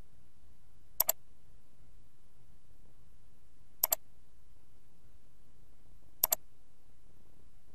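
Computer mouse button clicked three times, each click a sharp press-and-release pair, two to three seconds apart, over a steady low background noise.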